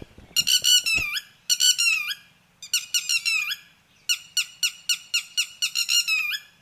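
Red-wattled lapwing giving its loud 'did-he-do-it' alarm call: four bouts of rapid, shrill, repeated notes, the last bout the longest. The call warns its mate or chicks of possible danger.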